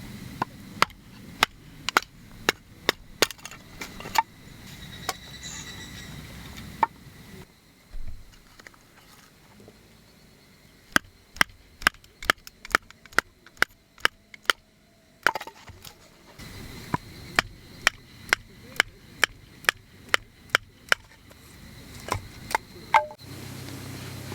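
Firewood being split by hand: sharp wooden knocks, about two a second, in three runs with short pauses between them.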